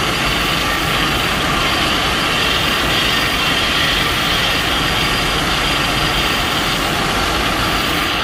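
Custom Godzilla sound effect: a loud, steady rushing noise over a deep rumble that holds level for several seconds, then starts to fade near the end.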